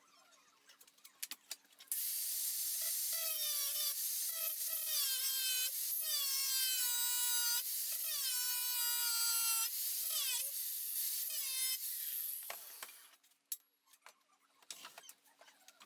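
Angle grinder grinding metal for about ten seconds, starting about two seconds in: a loud hiss with a motor whine that repeatedly dips in pitch as the disc bites and then recovers. It stops about two-thirds of the way through, leaving light clicks and handling sounds.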